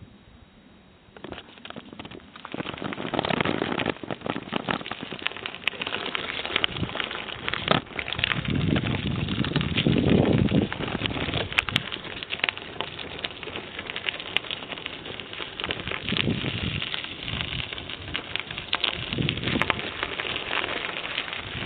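Bicycle riding along a forest trail: tyres crackling and clicking over gravel and twigs, with rattling and a low rumble that swells and fades. It starts faint and builds up over the first two or three seconds.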